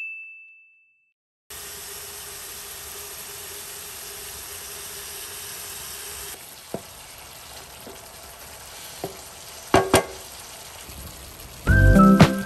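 Spice-coated chicken pieces sizzling as they fry in hot oil in a pan: a steady frying hiss, with a few sharp clicks in the middle. Music comes in near the end.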